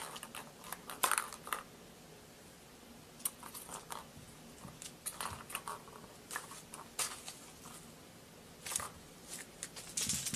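A kitten playing with toys: irregular rustles, light clicks and soft knocks as it bats and pounces at the paper toy on a string and the plastic track toy, in scattered bursts with short pauses between.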